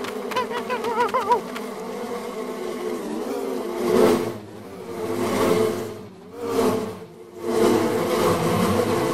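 Cartoon swarm of bees buzzing, a steady drone that swells and fades several times as the swarm closes in. In the first second and a half a wavering cartoon cry sounds over it.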